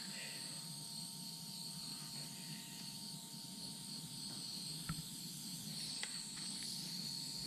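Small handheld propane torch burning with a steady, faint hiss as its flame heats plastic, with a small click about five seconds in.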